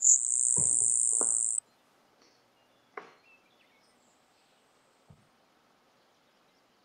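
Recorded grasshopper sparrow song: a single high, thin buzz that sounds kind of like a grasshopper, ending sharply after about a second and a half. A few faint knocks follow.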